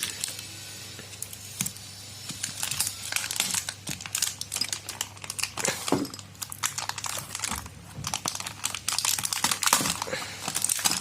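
Packaging wrap crinkling and rustling as a brake caliper bracket is unwrapped by hand, in irregular crackles that come thicker near the end.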